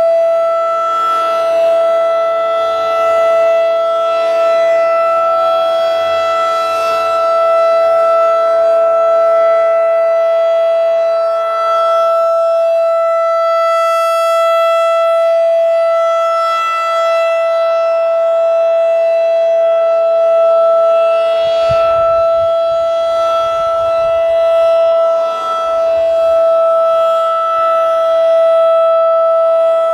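Federal Signal 2001-SRN rotating warning siren sounding a steady tone at full speed. Its pitch holds level while the loudness swells and dips slightly as it turns. Fainter steady tones of other sirens on the system sound beneath it.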